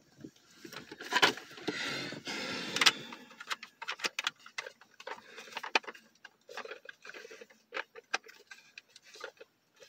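Hard plastic parts of a Mattel WWE Wrekkin Slam N Stack toy forklift being handled and fitted together: irregular clicks, taps and rattles with bits of rustling.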